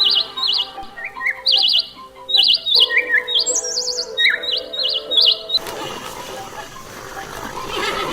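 A bird singing in short, rapidly warbled chirps, repeated many times at a few different pitches. The chirps stop about five and a half seconds in, leaving a rushing hiss.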